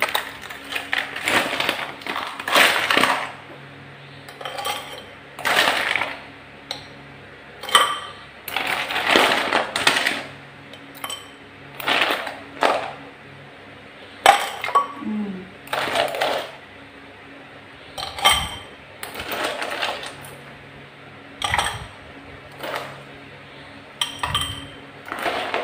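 Ice cubes dropped by hand into small glass tumblers, clinking and clattering against the glass, a clink every second or two with a short glassy ring after each.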